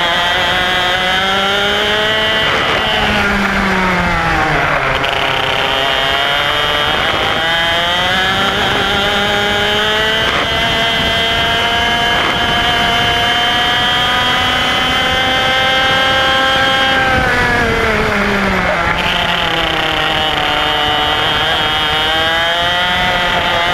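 IAME X30 125cc two-stroke kart engine at racing speed, heard from on board the kart. Its pitch drops twice, about three seconds in and again around seventeen seconds, as the driver lifts off for corners, then climbs back under acceleration and holds high along the straight in between.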